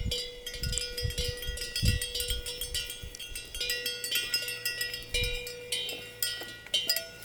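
Cowbells on grazing cattle clanking irregularly, many quick metallic strikes over a steady ringing tone.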